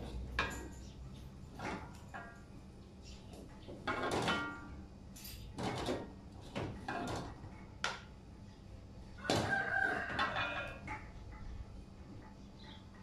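A rooster crowing, with the longest crow about nine seconds in, over the scrape and clatter of a metal spatula in a wok as okra is stir-fried and scooped out.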